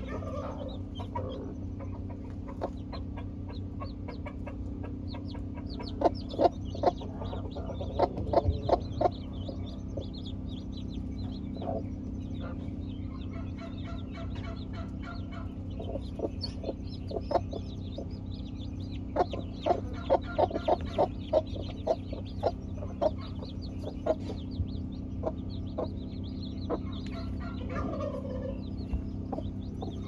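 Broody hens clucking among their newly hatched chicks, which peep continually in thin high chirps. Two runs of louder, sharp clucks stand out, about a fifth of the way in and again around two-thirds through, over a steady low hum.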